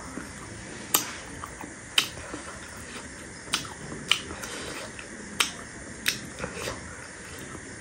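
A person's mouth clicks and lip smacks at the close microphone: about eight sharp, short clicks at uneven intervals, roughly one a second, over a low background hiss.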